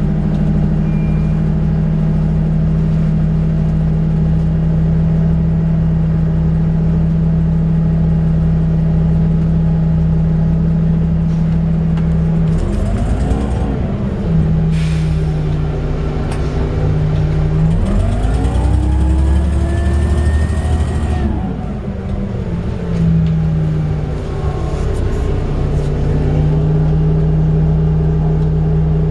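2004 Orion VII CNG transit bus running, heard on board: a steady low hum, broken twice by the engine rising and then falling in pitch as the bus speeds up and eases off, with short bursts of hiss.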